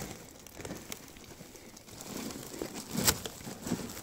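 A frightened cat under a blanket growling low, the defensive growl of a scared cat being held. Blanket cloth rustles under the hands, and a sharp, sudden noise comes about three seconds in.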